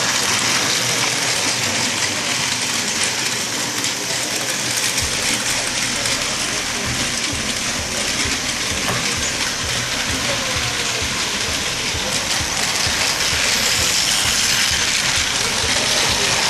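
Battery-powered Plarail toy train's small motor and plastic gearbox running, a steady whirring with fast clicking from the gears that comes in about five seconds in.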